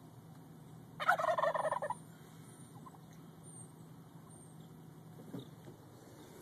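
A turkey tom gobbling once, a rapid rattling call lasting about a second, over the low steady hum of a car.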